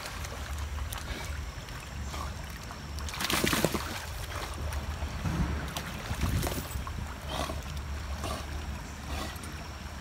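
A German shepherd paddling through a stream, water splashing and lapping around her as she swims, over a steady low rumble of wind on the microphone. A louder rush of noise comes about three and a half seconds in.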